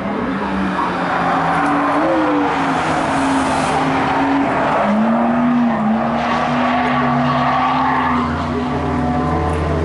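Race car engines revving up and down as the cars slide through corners on a loose dirt track, over a steady hiss of tyres and gravel.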